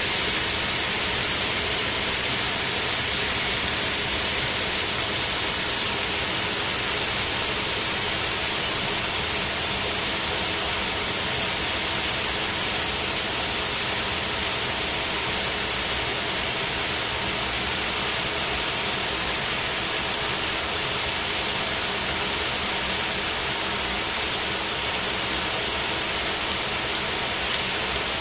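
Chicken pieces sizzling in a stainless steel frying pan: a steady, dense hiss.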